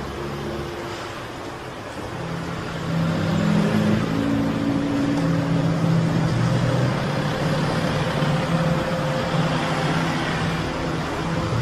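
Road traffic with a motor vehicle's engine running steadily.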